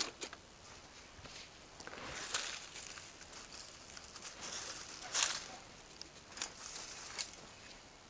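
Rustling and scraping of dry leaves and debris as rubble is picked through by hand on the ground, with a few sharp knocks, the loudest about five seconds in.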